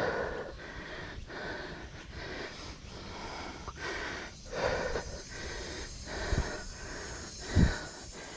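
A person breathing hard and heavily, in and out in quick repeated breaths, while climbing a steep trail on foot. Two dull low thumps come near the end.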